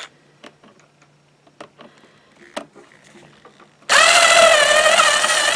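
Light clicks of wire and tool handling, then about four seconds in a cordless drill/driver's motor starts and whines steadily at high speed as it drives a fastener down on a battery box's wiring terminal block.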